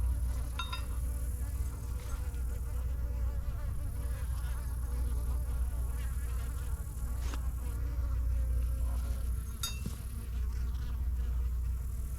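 Swarm of honeybees buzzing steadily around an open hive, with a constant low rumble underneath and a few short sharp clicks.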